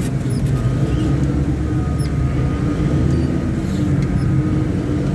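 Caterpillar 777D haul truck's V8 diesel engine running at a steady speed during a ground test, with a faint steady whine above the engine note.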